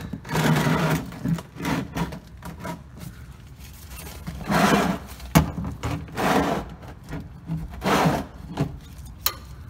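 About five short bursts of rubbing and scraping, with two sharp clicks, one midway and one near the end: someone shifting about under a pickup truck.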